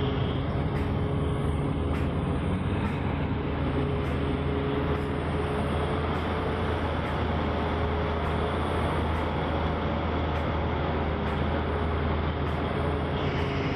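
Diesel engine of a large Tata Hitachi hydraulic excavator running steadily under load as it digs and swings a full bucket: a low, even drone.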